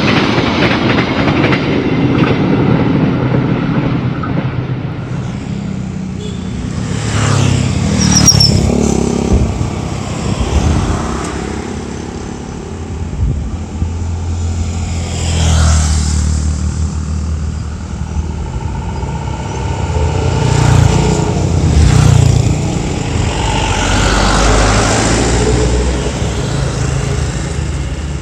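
The rumble of a passenger train's last carriages going past and fading away over the first few seconds, then road traffic: motorcycles and cars passing one after another, each swelling and fading, about five in all.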